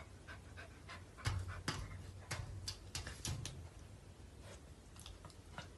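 Faint scattered clicks and taps from a puppy nosing and licking at a mirror, with a few dull low bumps between about one and three and a half seconds in.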